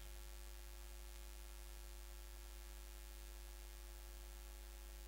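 Steady low electrical mains hum with a faint hiss, even throughout, with no other sound.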